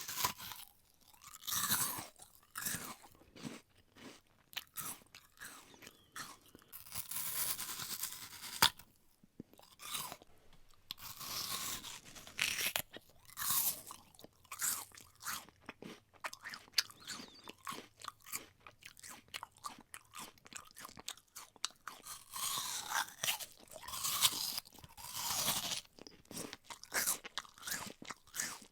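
Close-up bites into a crisp apple and the crunchy chewing that follows, in irregular bouts with short pauses between.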